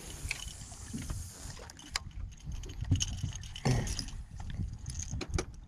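Wind rumbling on the microphone and water lapping at a small fishing boat's hull, with scattered light clicks and taps.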